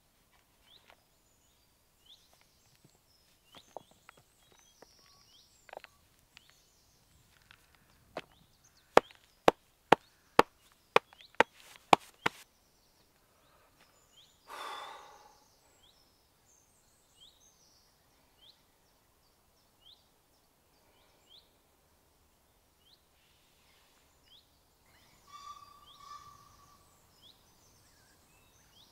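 A small bird calling with short falling notes about once a second. About nine seconds in come about nine sharp slaps in quick succession, the loudest sounds here. About halfway through, a man lets out one long, heavy sigh as he rests.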